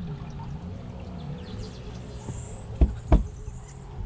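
Two sharp knocks about a third of a second apart, about three-quarters of the way in, over a steady low hum on a fishing boat.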